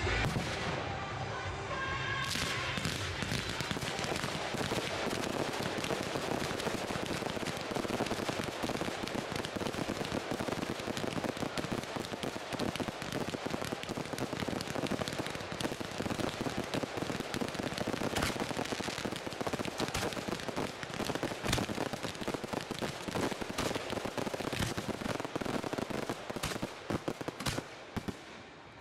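Fireworks display going off in rapid, unbroken succession: a dense barrage of crackling and sharp reports. Show music is heard under it for the first couple of seconds.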